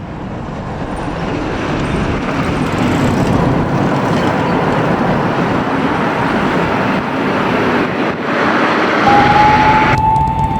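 A fire engine's engine and road noise growing louder as it approaches, then holding steady. About nine seconds in, its siren starts up as one rising tone.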